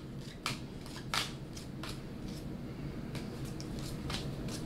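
Pokémon trading cards being flipped through by hand, a short papery flick each time a card is slid off the stack, at irregular intervals of about a second.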